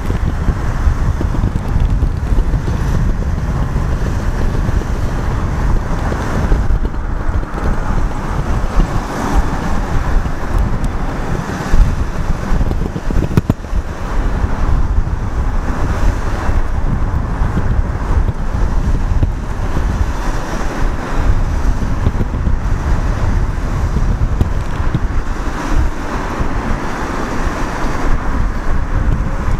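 Wind buffeting the microphone: a loud, gusting low rumble with an unsteady hiss above it.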